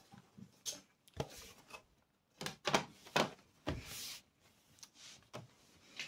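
Aluminium bottom case of a 2012 MacBook Pro being laid onto the laptop and pressed into place: a series of light knocks and clicks, with one longer scraping noise about four seconds in.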